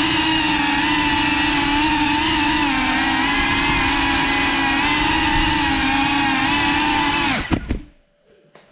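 Cinelog 35 FPV cinewhoop drone's motors and propellers buzzing steadily at high pitch, the pitch wavering slightly with throttle. Shortly before the end the motors spin down and stop, and a few faint knocks follow.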